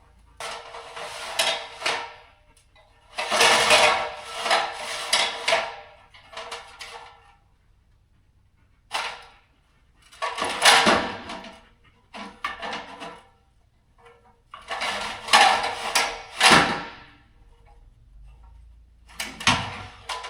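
A big ladder being handled and set up, rattling and clattering in a handful of separate bursts of one to two seconds with short quiet gaps between.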